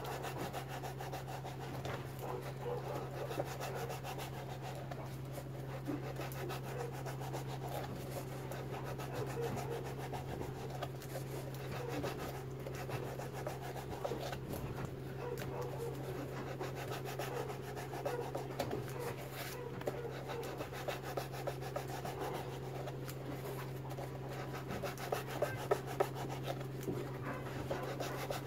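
A small knife cutting and scraping through a large foam fishing float, a continuous scratchy rasp with a few sharper clicks near the end, over a steady low hum.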